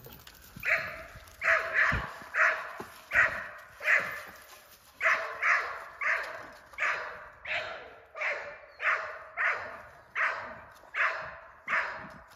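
A dog barking steadily and repeatedly, about two barks a second.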